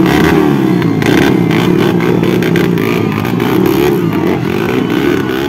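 Dirt bike engine revving up and down unevenly while the bike is bogged in deep mud, the revs rising and falling as it struggles for grip.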